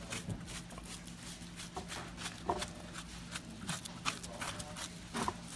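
A fork scraping and scooping the soft flesh out of a grilled acorn squash half, giving an uneven string of light scrapes and clicks.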